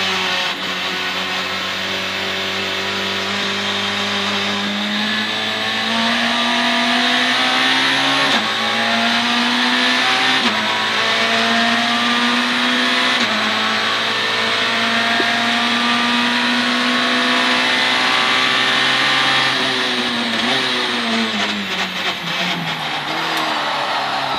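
Citroën C2 R2 Max rally car's 1.6-litre four-cylinder engine, heard from inside the cabin under hard acceleration. The revs climb and drop sharply at gear changes about a third and halfway in, then climb long and steady. Near the end the revs fall away as the car slows for a corner.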